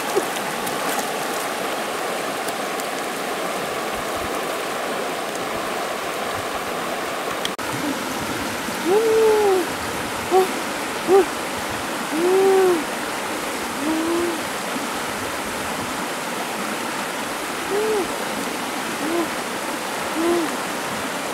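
Shallow river rapids running steadily over stones. From about nine seconds in, a woman gives about ten short rising-and-falling 'ooh' and 'woo' exclamations.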